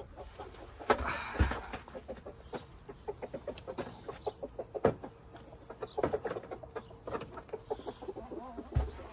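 Chickens clucking in quick, short calls, with a few sharp knocks in between.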